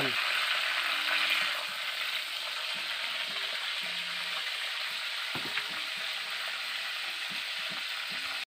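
Fish frying in hot oil in a wok, a steady sizzle, a little louder in the first second or so, with a few faint knocks midway. The sound cuts off abruptly just before the end.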